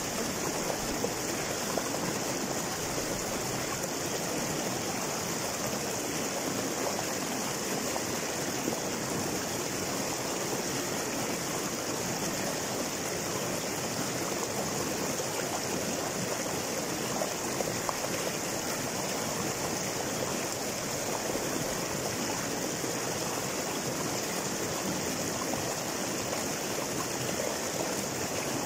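Small rocky river rushing over boulders in a short cascade: a steady splash and rush of running water.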